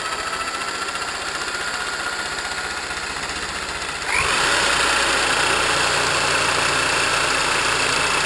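Electric drill running, spinning a threaded rod clamped in its chuck to run a nut down the rod. About four seconds in it speeds up: the whine rises in pitch and the sound gets louder.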